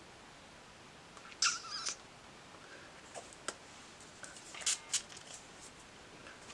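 Makeup brushes and an eyeshadow palette being handled: a short scrape, then several light, sharp clicks and taps.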